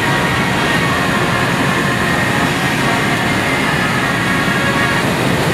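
Steady roar of gas-fired glassblowing furnace and glory hole burners, with a faint steady high tone running through it.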